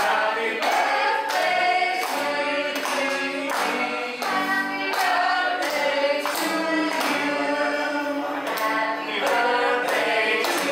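A group of people singing together in unison and clapping their hands on a steady beat.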